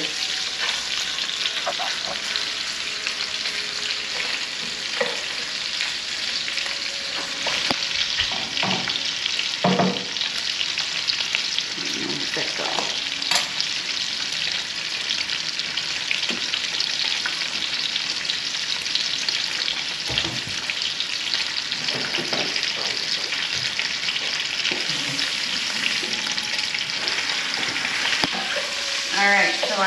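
Sausage frying in a pan on a gas burner, a steady sizzle, browning toward a char. A few short knocks sound now and then.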